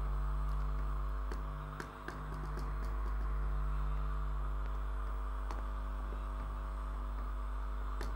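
Coconut-milk and chicken-stock sauce at a boil in a nonstick pan, a soft hiss with a few faint ticks and pops, under a steady electrical hum that is the loudest sound throughout.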